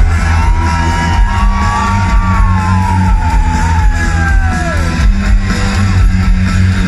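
Live rock band with electric guitars, bass, drums and horns playing loud, heard from within the crowd in a large hall. A long high note is held for about four seconds, then slides down and stops about five seconds in.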